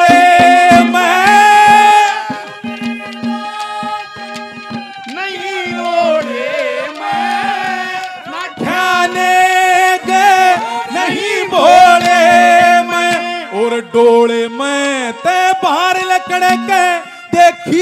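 Haryanvi ragni folk singing: a man holds long, bending, ornamented notes with no clear words, over a steady low drone and dholak drum strokes.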